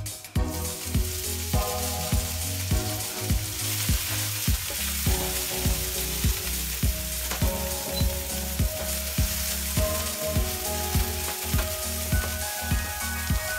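Chopped vegetables hitting hot oil in a non-stick frying pan and sizzling steadily while a wooden spatula stirs them. The sizzle starts just after the start. Background music with a steady beat plays throughout.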